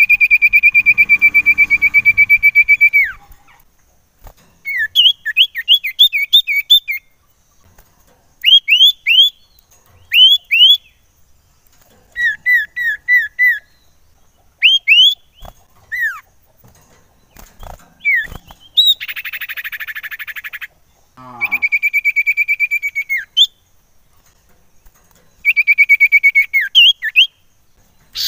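Common iora singing a varied song: it opens with a long, fast trill, then runs of quick rising whistled upslurs and short down-slurred notes. About two-thirds of the way through comes one harsh, buzzy rasp, followed by more trills near the end.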